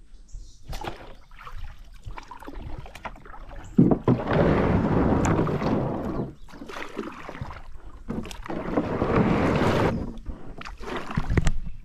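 Kayak being paddled: repeated splashes of the paddle in the river, two of them longer washes of water lasting about two seconds each.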